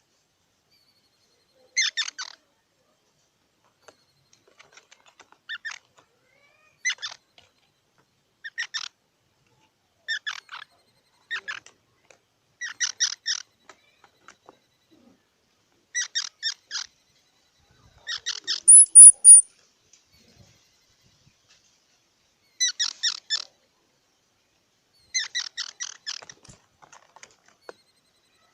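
Squirrel calling in short bursts of rapid, chattering squeaks, one burst every one to two seconds. About two-thirds of the way through comes a much louder burst topped by a very high-pitched squeak.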